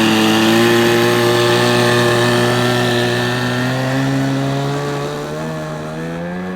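Small model-aircraft engine running steadily at high revs in the Ben Buckle Super 60 radio-control plane, a buzzing note that creeps slightly up in pitch and grows quieter over the last couple of seconds.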